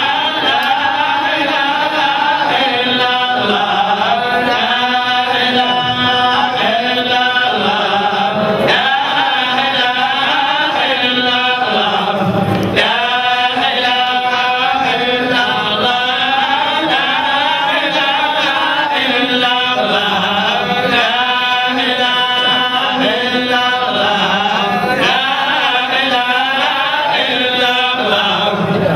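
Men chanting an Islamic devotional song together into microphones, the melody held and wavering without a break.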